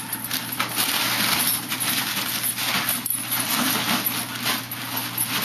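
Foil balloons crinkling and rustling without a break as a puggle tangled in their ribbons tugs and knocks them about.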